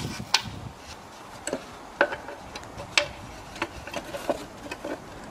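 Irregular clicks and light knocks of a metal junior hacksaw being handled and set against a protruding bolt end on a plywood board, with no steady sawing rhythm.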